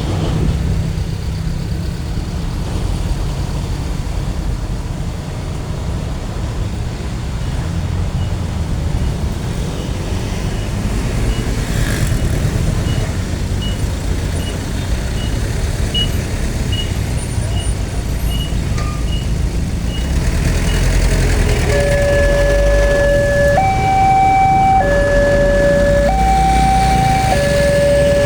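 Steady rumble of road traffic, with a faint high beep repeating a little more than once a second through the middle. About 22 seconds in, a two-tone hi-lo emergency-vehicle siren starts, switching between a low and a high note about every second and a quarter, and gets louder.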